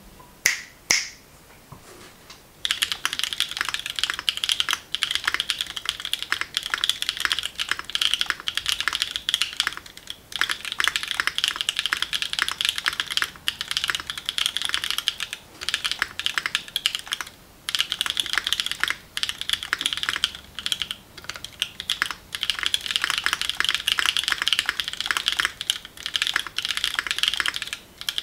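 Mode Envoy mechanical keyboard with Mode Tomorrow tactile switches and Mode Tomorrow ABS/PBT-blend keycaps being typed on: a few single keystrokes, then fast continuous typing with short pauses. The foamless build gives a higher-pitched, clacky sound.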